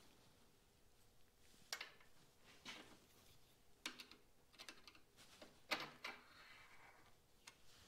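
Scattered small metal clicks and taps, about five in all, as a screwdriver turns the clamp screw of a part being fitted to a chrome motorcycle handlebar. Quiet between the clicks.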